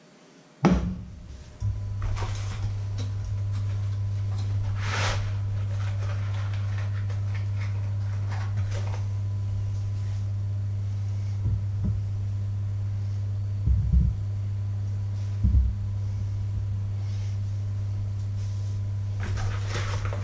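Induction hob humming steadily with a low electrical drone once the steel frying pan is set on it. The pan knocks down on the glass about a second in. Later come three soft knocks as three breaded sticks are laid in the pan, with light clicks here and there.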